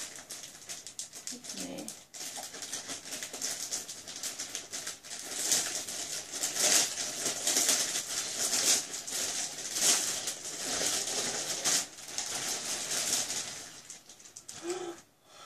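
Clear plastic bag crinkling and rustling as it is handled and pulled open, a dense crackle that is loudest through the middle and dies down near the end.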